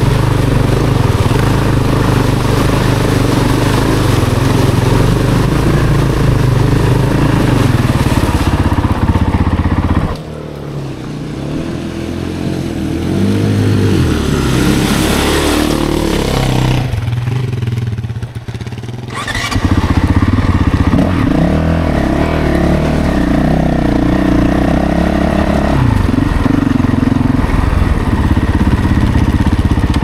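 Honda CRF450L's single-cylinder four-stroke engine running while the dirt bike is ridden, its note rising and falling with the throttle. Around a third of the way in it drops to a quieter, lower note for several seconds before picking up again.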